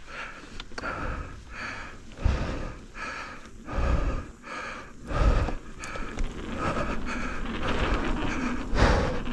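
Mountain biker breathing hard while riding, with repeated heavy exhales that puff onto the microphone. A steady rush of riding noise thickens over the last few seconds.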